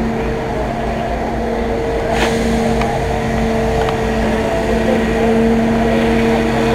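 Fire truck engine running steadily at the fire scene, a constant droning hum. A single short sharp click about two seconds in.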